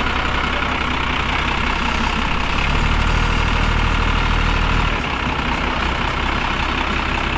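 Leyland DAF recovery truck's diesel engine idling steadily.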